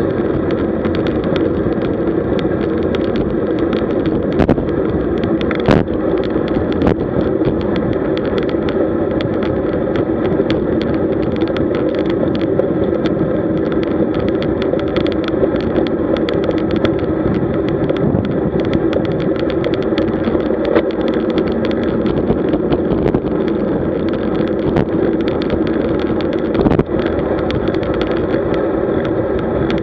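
Steady wind and road noise from riding a road bicycle, heard on the ride camera, with a couple of sharp knocks, one about six seconds in and one near the end.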